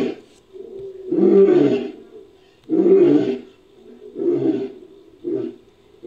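Made-up sound effect of an American lion roaring: a series of four deep, lion-like roaring grunts about a second and a half apart, each shorter and quieter than the one before.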